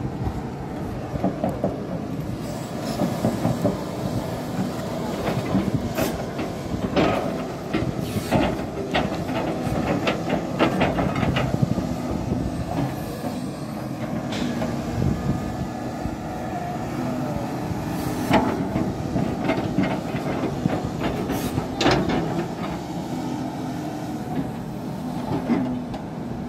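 Tracked hydraulic excavator digging in earth: its diesel engine running steadily under load, with scattered sharp metallic clanks and knocks from the working machine and bucket, several of them close together in the first half.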